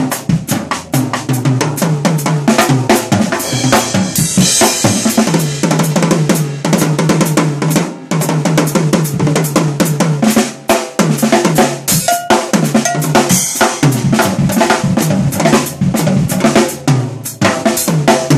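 Acoustic drum kit played solo: fast, dense fills across snare, toms and bass drum, with cymbal crashes that swell about four seconds in and again around twelve seconds.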